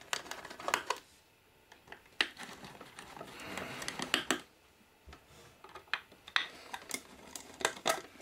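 Screwdriver unscrewing the cover screws of a Topcon GTS-300 total station: a run of small sharp clicks and taps, with a short scraping stretch about three to four seconds in.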